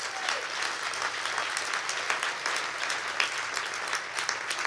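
Audience applauding: many hands clapping at once, with no break.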